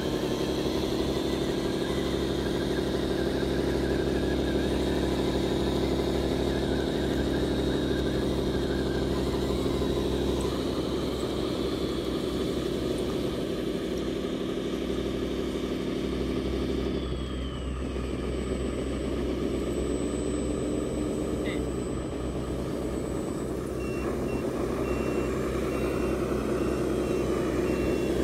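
Simulated diesel engine sound from 1/14-scale RC dump trucks, running steadily. A reversing beeper beeps evenly through the last few seconds.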